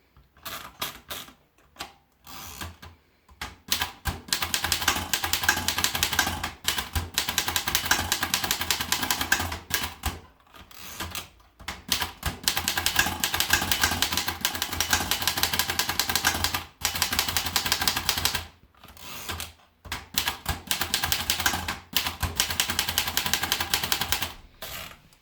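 Erika Modell S manual portable typewriter being typed on in fast runs of key strikes. Its typebars clack against the platen, with short pauses between bursts.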